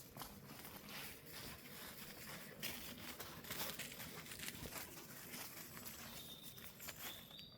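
Footsteps crunching and rustling through dry leaves and twigs on a forest floor. A faint high bird chirp comes near the end.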